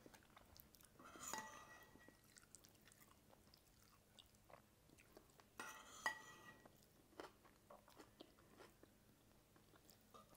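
Faint chewing and mouth sounds of people eating by hand, with scattered small clicks and two brief louder bits, about a second in and about six seconds in.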